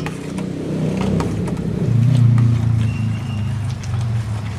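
A motor vehicle's engine hums low, growing louder about two seconds in and then easing off. Faint clinks of a metal spoon stirring liquid in a stainless steel pot sound over it.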